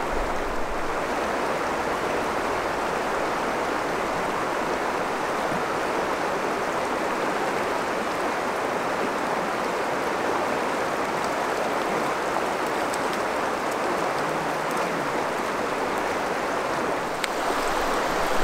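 A river rushing steadily over riffles, an even hiss of moving water.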